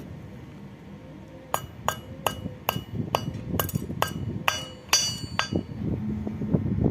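A hammer striking a mild steel pipe about ten times in quick succession, two or three blows a second, each leaving the metal ringing. Duller clatter follows near the end.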